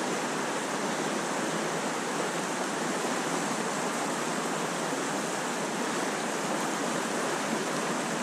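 Trout stream water rushing steadily, an even hiss that does not change.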